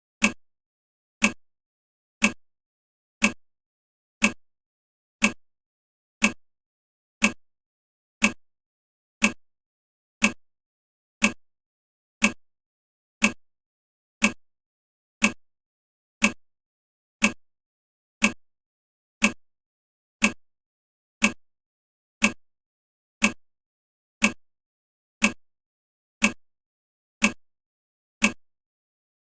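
Countdown timer's clock-tick sound effect, one short sharp tick every second.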